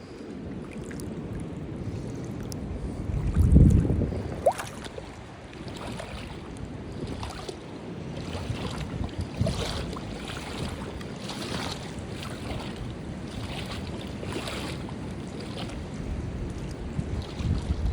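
Sea waves washing and splashing, with wind buffeting the microphone, hardest in a gust about three to four seconds in.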